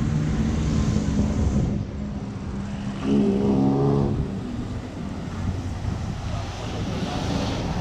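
City street traffic: motor vehicle engines running and passing, with one engine rising briefly in pitch about three seconds in.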